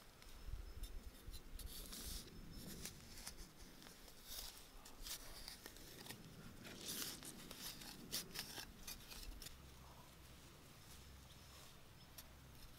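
Loose soil being scraped and dug out of a cricket burrow, faint irregular scratchy scrapes and rustles of dirt and grass stems.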